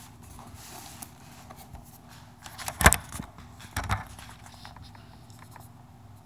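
Cardboard box being handled and picked at by fingers, with two sharp knocks, the louder about three seconds in and a second about a second later, and faint scratches and ticks.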